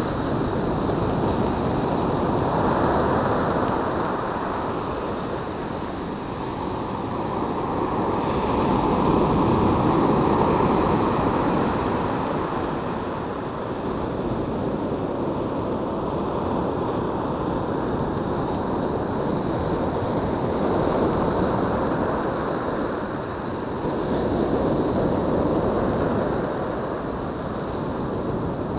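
Ocean surf breaking and washing up the beach, a steady rush that swells and fades as each set of waves comes in, with wind buffeting the microphone.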